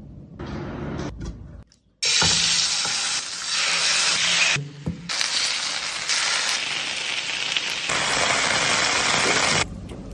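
Chicken frying in hot oil in a pan: a loud, steady sizzle starts about two seconds in, breaks off briefly near the middle and stops shortly before the end.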